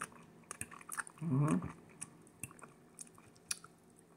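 A person chewing a mouthful of shrimp noodles close to the microphone, with small wet mouth clicks. There is a brief hummed 'mm' about a second and a half in.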